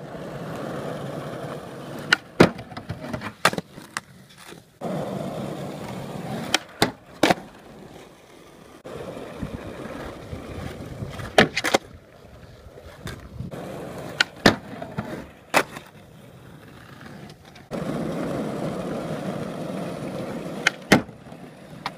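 Skateboard wheels rolling over rough asphalt in several separate runs, each broken by a few sharp clacks of the board popping, striking the wooden ledge and landing.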